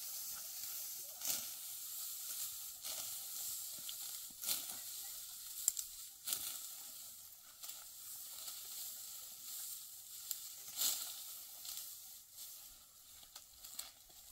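Dry wheat stalks rustling and crunching in short bursts every second or two as they are handled, over a steady high hiss.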